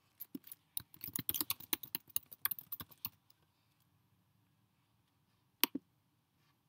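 Rapid typing on a computer keyboard for about three seconds, then a single click a little more than five seconds in.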